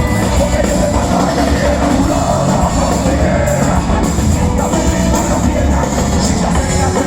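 Loud live rock music from a band playing at an outdoor concert, with some singing.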